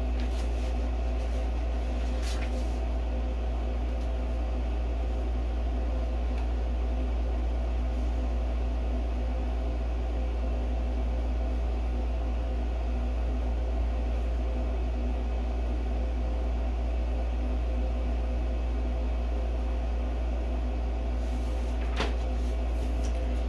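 A steady low mechanical hum, such as a fan or air conditioner, with two brief rustles of paper and cardboard being handled, one about two seconds in and one near the end.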